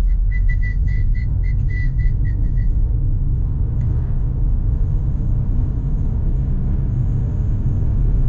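Steady low road and engine rumble inside a moving car's cabin. Over the first two and a half seconds there is a quick run of short high beeps, several a second.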